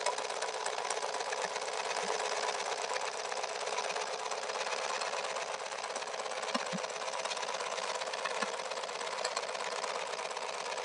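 Motorcycle engine idling steadily with a fast, even mechanical clatter, held at idle while its intake vacuum draws brake fluid through a hose to bleed the brakes.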